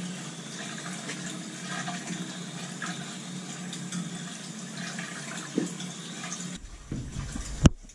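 Purge water running steadily from a hydronic boiler loop through a drain hose into a bucket, over a steady low hum, as trapped air is bled out of the heating pipes. About six and a half seconds in the flow sound stops abruptly, and a sharp click follows near the end.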